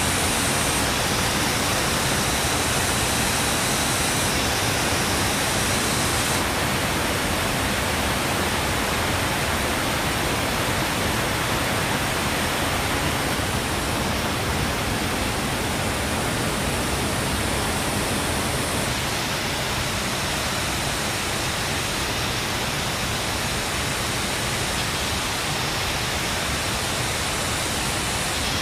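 A steady, loud rushing noise, even across the whole range from deep to hissing. The upper hiss changes slightly in tone a few times.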